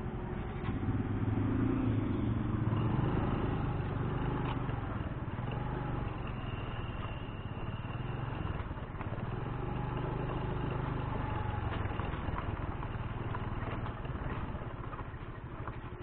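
A motor vehicle's engine running at low speed, with a low hum that swells a little twice and eases again.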